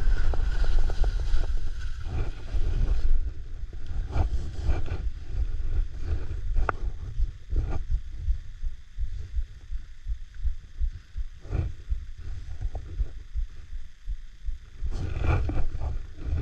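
Skis scraping and carving over snow, with irregular sharp scrapes on the turns, over a steady wind rumble on the microphone that is heaviest in the first three seconds.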